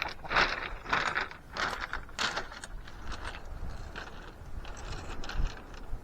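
Fishing reel being wound in after a cast, a run of scratchy mechanical strokes, loudest in the first couple of seconds and fainter after.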